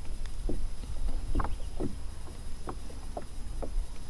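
Small waves lapping against the side of the boat in short, irregular slaps, over a low steady rumble.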